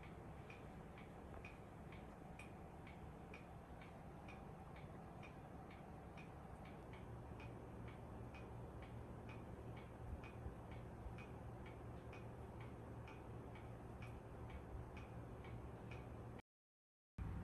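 Clock ticking steadily in a quiet room, about two ticks a second, over a faint low hum. The sound cuts out for a moment near the end.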